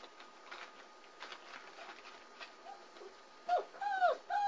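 Four-week-old German Shepherd puppy whining: three short, high, arched whines near the end, after a few faint scattered ticks and scuffs.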